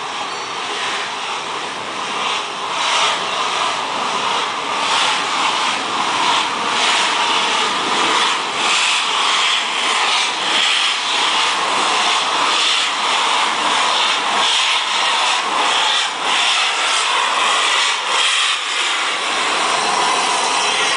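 Steam locomotive working hard as it approaches and passes close by: a chuff of exhaust about every two-thirds of a second over a steady rush of steam, growing louder over the first few seconds.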